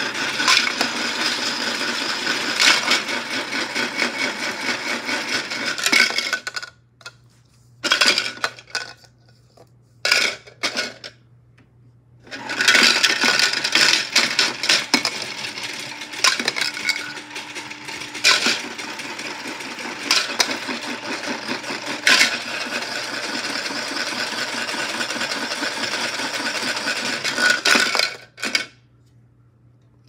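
Rapid, dense rattling and clattering of small hard objects, in two long spells with a near-silent pause of about six seconds between them that holds only a few single clicks.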